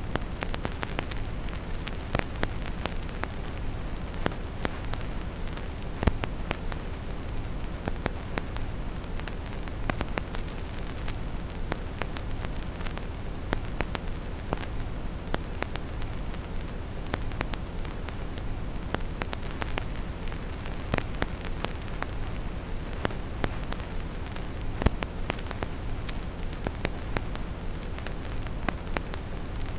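Vinyl record crackle: irregular clicks and pops of a stylus riding the groove, over a steady low brown-noise rumble. Two pops stand out louder, about six seconds in and near twenty-five seconds.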